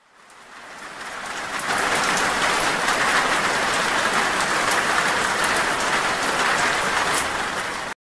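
A sound-effect clip of steady rain-like hiss with scattered faint ticks. It fades in over about two seconds, holds steady, and cuts off abruptly near the end.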